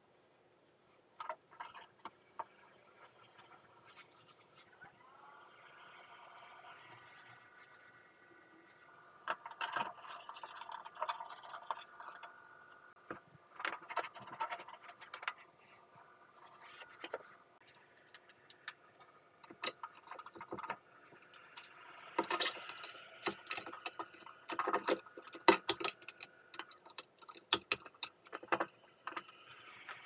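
Hands wiping out a wall ventilation duct with a cloth and then fitting a plastic pipe ventilation fan into the opening: scattered scrapes, rubs, clicks and knocks, which get busier in the second half. A faint steady whine sits underneath.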